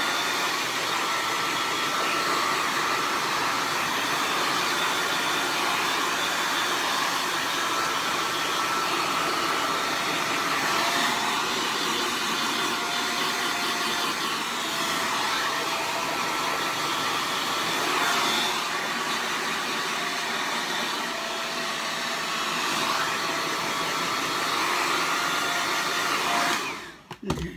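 Handheld corded blow dryer running steadily, blowing air into the hair, then switched off near the end.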